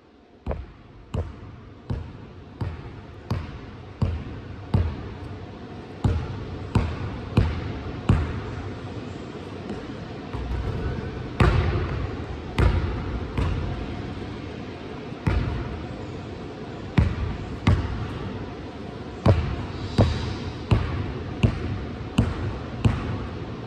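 A basketball being dribbled on a gym floor: a steady run of bounces, about three every two seconds, each echoing in the large hall.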